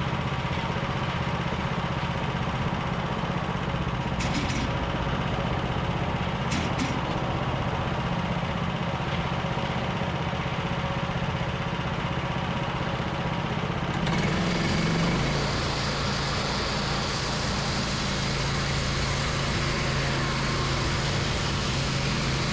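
Homemade band sawmill running, its engine giving a steady drone. About two-thirds of the way through the sound changes, turning hissier, and the hum settles on a slightly different steady note.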